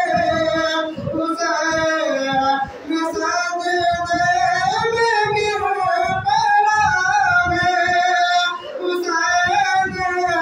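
A man's high solo voice singing an Islamic devotional chant into a microphone, with long held notes that bend and turn and brief breaths between phrases.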